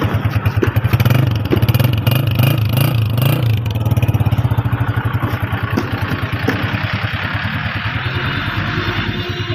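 Honda CG125 motorcycle's single-cylinder four-stroke engine running. Its speed rises and falls a few times in the first few seconds, then it settles to a steady idle.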